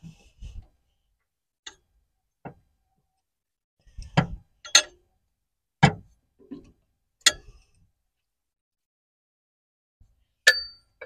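Metal hand tool clinking and knocking against a John Deere tractor's engine while the engine temperature sensor is being worked loose: about seven sharp, irregularly spaced clinks, the last one loudest, with a short metallic ring.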